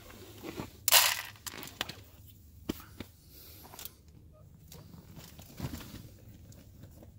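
A handful of dry cat kibble poured into a floor bowl, a short rattle about a second in, followed by scattered light clicks and rustles.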